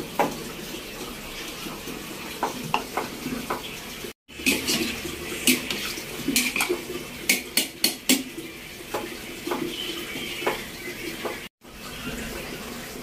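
Metal utensil clinking against a cooking pot as chicken in broth is stirred: a series of sharp clinks, thickest in the middle, over light sloshing of the liquid.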